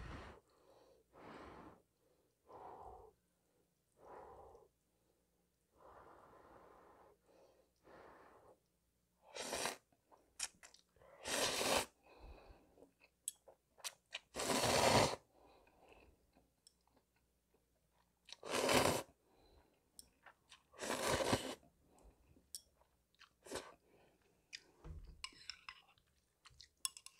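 A person slurping instant ramen noodles in a creamy mayonnaise broth: about five loud slurps, each under a second, with chewing and a lip smack between them and quieter handling sounds in the first few seconds.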